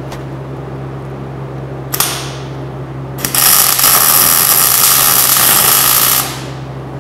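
MIG welder arc crackling as the cut-off eye is welded back onto a steel hydraulic cylinder rod: a short strike at about two seconds, then about three seconds of steady welding that stops near the end. A steady low hum runs underneath.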